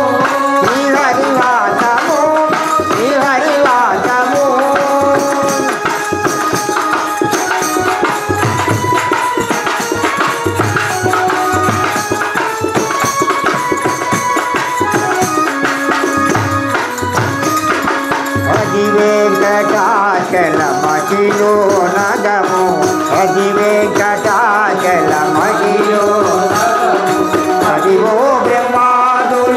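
Telugu devotional bhajan: a barrel-shaped dholak and a stick-beaten drum keep a steady rhythm, with small hand cymbals and a jingling hand clapper, under a melody carried by male singing voices.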